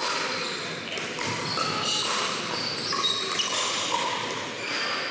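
Pickleball paddles striking the plastic ball, many short hollow pocks at different pitches from several games at once, echoing in a large gym hall.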